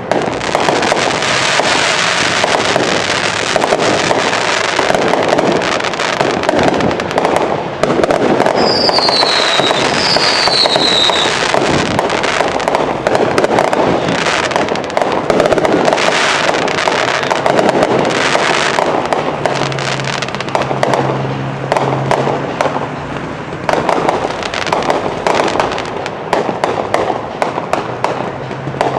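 Fireworks finale: a dense, continuous barrage of bangs and crackling as many shells go off at once. About nine seconds in, two short falling whistles sound one after the other.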